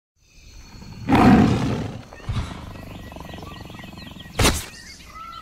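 A big cat's roar, loud, about a second in, trailing off into a lower rough growl, then a short sharp burst near the end as a sound effect.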